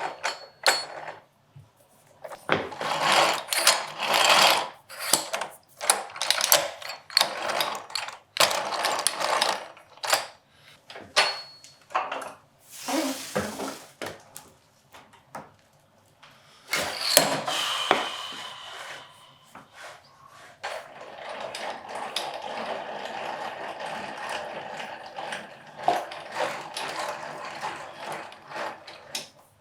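Twin Turbo twin-screw bench vise being worked: its screw and gear mechanism turning with irregular clicking, ratcheting and knocking. In the last third it settles into a steadier continuous mechanical running sound.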